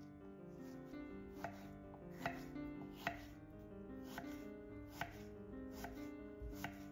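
Kitchen knife slicing through peeled pears and knocking on a wooden cutting board, seven strokes roughly a second apart, over soft background music.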